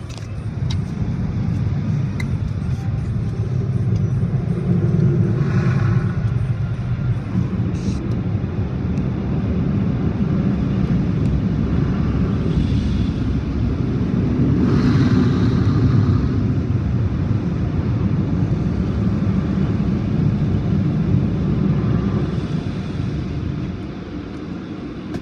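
Automatic car wash air-dryer blowers running, a loud steady low roar heard from inside the car, easing off near the end.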